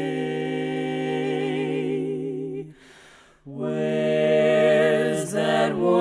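Women's barbershop quartet singing a cappella in four-part close harmony: a held chord that stops a little under three seconds in, a short breath pause, then a new sustained chord with vibrato that shifts pitch near the end.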